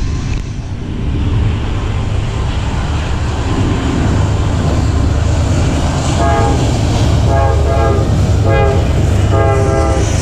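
Norfolk Southern intermodal train led by three diesel locomotives approaching, with a low rumble that builds. From about six seconds in the lead locomotive sounds its horn in several short blasts.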